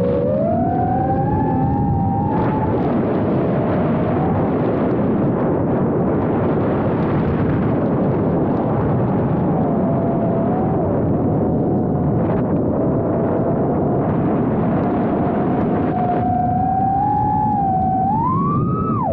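Small FPV quadcopter's brushless motors and propellers whining, the pitch rising and falling with the throttle, heard from the camera mounted on the drone. The whine climbs at the start, is buried under rushing wind and propeller noise through the middle, then rises again near the end and drops sharply.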